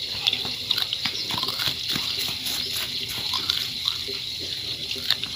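Close mouth sounds of a man biting the scaly skin off fallen aguaje (moriche palm) fruit and chewing it: a string of small clicks and smacks. Under it runs a steady, high-pitched insect chorus.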